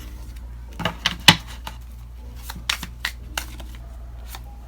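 Tarot cards being handled and laid out: a scatter of sharp clicks and slaps, the loudest just over a second in, over a steady low hum.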